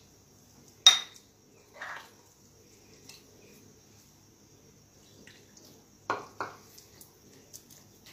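Metal spoon stirring thick flour batter in a glass bowl, clinking against the glass now and then: a sharp clink about a second in, a softer one a second later, and two more close together near the end.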